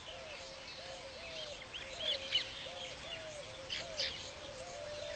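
Weaver birds chirping in a few short high clusters, over a low call that repeats about twice a second throughout.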